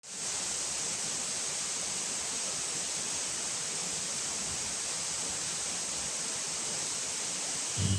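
Steady, rushing roar of a large waterfall, the water falling hard, fading in at the start. Background music comes in at the very end.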